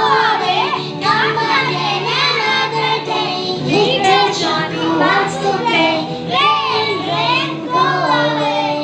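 A song with a high singing voice that bends and wavers in pitch, over steady low accompaniment.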